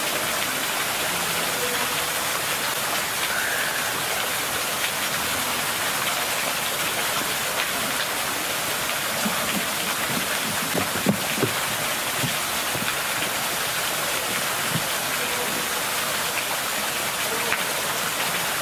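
Steady rushing hiss of falling or running water, even throughout, with faint distant voices underneath about halfway through.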